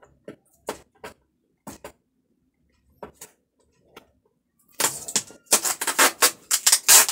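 A cardboard carton of bottled drinking water being opened by hand: a few separate taps and scrapes at first, then from about five seconds in a dense, loud crackling of the packaging being torn and handled.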